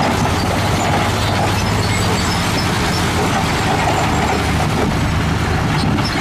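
Heavy dump trucks' diesel engines running steadily, with a low drone, while their raised tipper beds unload rock and dirt that pours out with a constant rushing noise.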